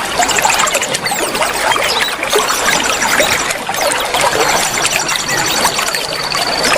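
Water running and trickling steadily, with many short bird chirps over it and several rapid, high-pitched trills, each lasting about a second.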